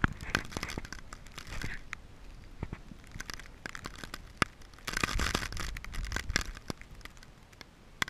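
Deep powdery snow crunching and crackling as a Siberian husky scrambles and plays in it close to the camera, with many sharp clicks and knocks of the camera being handled. The scuffling is densest at the start and again from about five seconds in, and thins out near the end.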